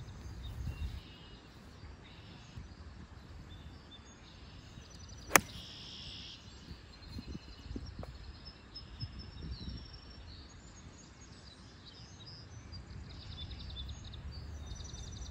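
A single sharp crack of a gap wedge striking a golf ball, about five seconds in, over steady outdoor background noise with birds chirping faintly.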